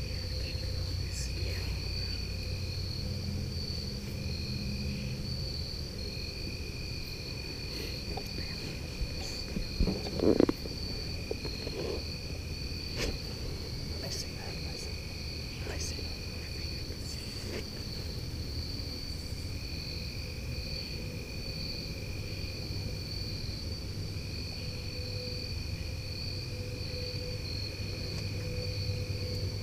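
Evening insect chorus: a steady high trill runs throughout, with a second, lower trill that starts and stops every few seconds, over a low rumble. Scattered small clicks of gear handling, with a short louder knock and rustle about ten seconds in.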